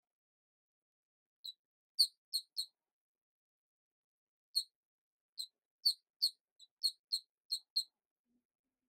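Short, high-pitched, mouse-like squeaks, about a dozen in all: one, then a quick group of three about two seconds in, then a faster run of about nine from the middle to near the end. There is dead silence between them, as from an added sound effect.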